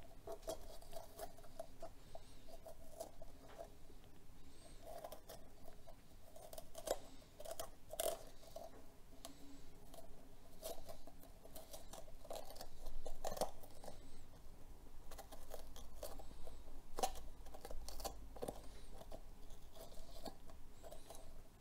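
Small knife cutting through the crisp flesh of a green bell pepper to loosen its seed core: faint, irregular crunchy snicks and scrapes.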